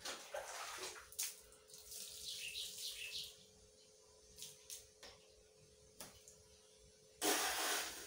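Water scooped and poured from a plastic dipper: splashing in bursts over the first three seconds, a few light knocks, then a louder pour near the end.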